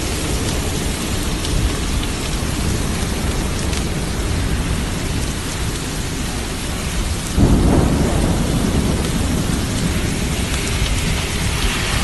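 Heavy rain mixed with hail pouring down onto a paved road, a loud, steady hiss. About seven seconds in, a sudden low rumble swells up for a second or two.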